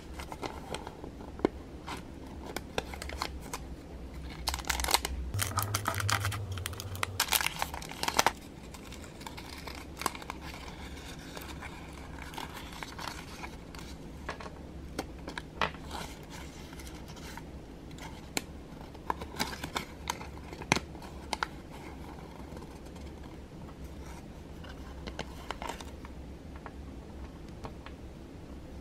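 Thin printed paper wrapper crinkling and rustling as it is unfolded by hand, with scattered light clicks and taps. The crinkling is densest and loudest from about five to eight seconds in.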